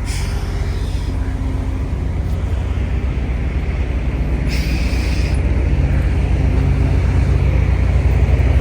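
Diesel engine of a semi-truck running low and steady while it is backed into a parking spot, growing slowly louder as it comes closer. A brief hiss sounds about halfway through.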